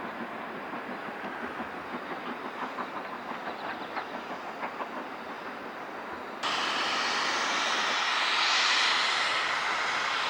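Steam train running along the line, its beats coming at about three a second. About six seconds in the sound switches abruptly to a louder, steady rushing noise that swells and eases off near the end.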